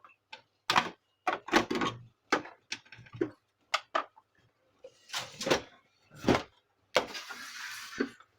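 Plastic clicks and knocks from handling the casing of a Canon imageCLASS MF4750 laser printer during disassembly, ten or so separate knocks, then about a second of scraping near the end.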